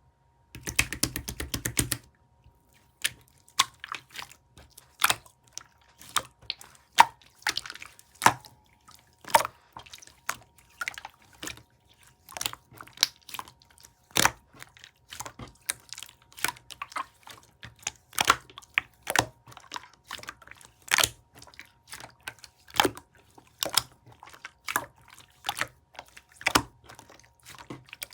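Coral-coloured clear slime being squished and poked by hand, giving sticky, wet popping clicks at an irregular pace, with a quick rapid run of them near the start.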